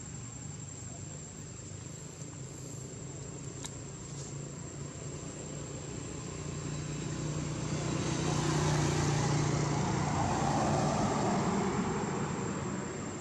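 A motor vehicle passing on the road: its engine and tyre noise grow louder from about six seconds in, stay loudest for a few seconds, then fade away.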